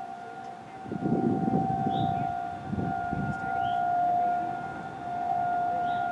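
Outdoor warning siren sounding a steady tone that swells and fades in loudness, with three short high chirps over it.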